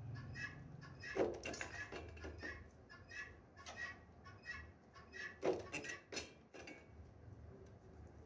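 Steel wires being handled and lined up at a lever bar shear, with two sharp metallic knocks about a second in and again past halfway, over a steady series of short high chirps, about three a second.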